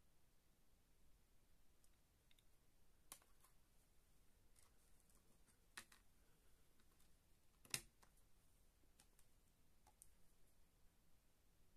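Near silence with a few faint, sharp clicks of discs being handled and snapped on and off the plastic hub trays of a SteelBook case, the loudest about two-thirds of the way in.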